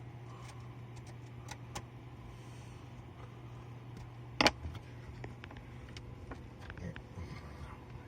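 Small clicks and light rattles of wire connectors and hand tools being handled during electrical wiring work, with one sharper click about four and a half seconds in, over a steady low hum.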